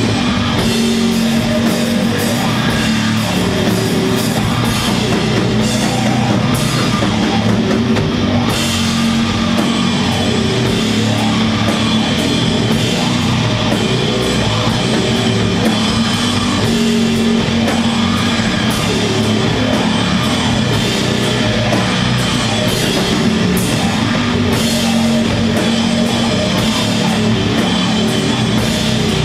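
Doom metal band playing live: heavily distorted guitars and bass holding long, low notes over drums and cymbal crashes, loud and steady.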